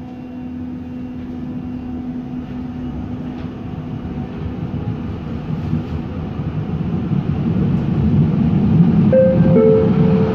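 TW6000 light-rail car heard from inside as it pulls away from an underground station: its running noise and motor hum rise steadily as it picks up speed. Two short higher tones sound near the end.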